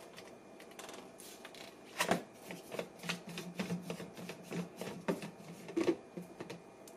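Nutribullet RX extractor blade being unscrewed from the plastic cup: a run of light clicks and rasps from the plastic threads, loudest about two seconds in and again near the end.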